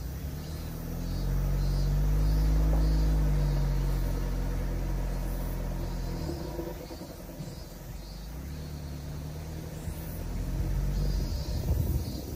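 Mitsubishi Delica D:5's clean-diesel engine pulling the vehicle along, its note rising over the first couple of seconds and then easing off, with another surge and a couple of sharp knocks near the end. Insects chirp in a steady rhythm behind it.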